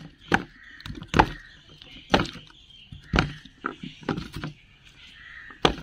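Hands mixing sliced onion, tomato, capsicum and cucumber in a steel plate: sharp taps and clicks of fingers and wet slices against the metal, about one a second.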